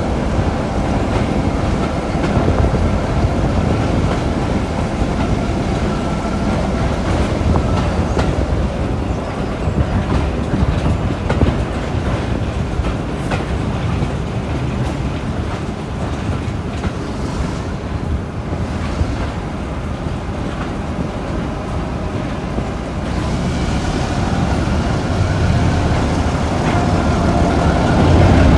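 Class 08 diesel-electric shunter hauling a train, with steady running noise and wheels clicking over rail joints, growing louder near the end.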